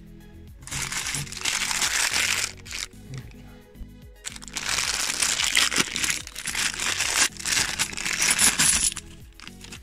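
A clear plastic bank coin bag crinkling as it is handled, in two long stretches, with the odd clink of £2 coins inside it. Background music plays underneath.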